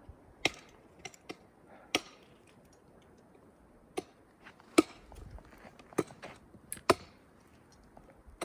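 Footsteps crunching on icy snow: about ten sharp, irregularly spaced crunches, with a faint steady hiss underneath.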